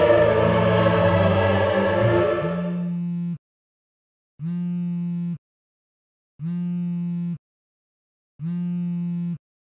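Choral classical music fades out over the first three seconds. Then a smartphone goes off with an incoming call: a steady low buzz about a second long, repeated three times, one every two seconds.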